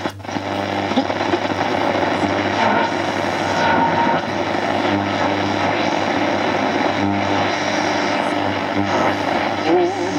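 Static and hiss from a 1935 RCA Victor T6-1 tombstone radio's speaker as its tuning dial is swept across the AM broadcast band between stations, over a steady low hum.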